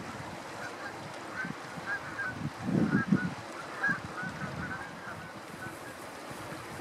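A flock of Canada geese honking, many short calls overlapping, thinning out after about five seconds. Low gusts of wind buffet the microphone about three seconds in.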